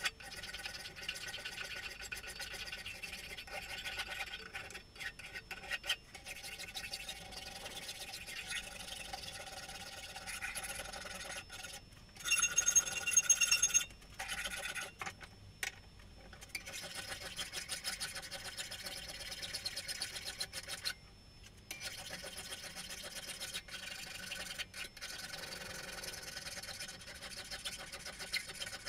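Hand file rasping in repeated strokes along a spring-steel kukri blade clamped in a bench vise. A brief, louder, high-pitched squeal rings out near the middle.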